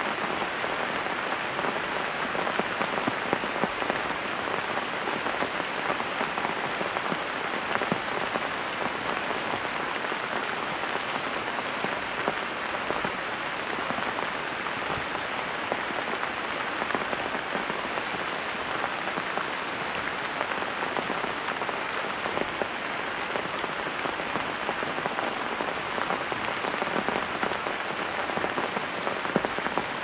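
Heavy rain falling steadily: a dense, even patter with occasional louder individual drops.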